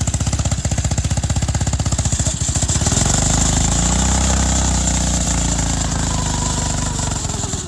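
Honda 160 single-cylinder four-stroke engine running flat out with its throttle rigged wide open. It starts with rapid, hard firing pulses and about three seconds in smooths into a higher, steady rev.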